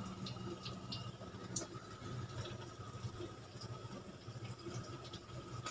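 Quiet room tone: a steady low hum with a thin steady high tone over it, and a few faint scattered clicks.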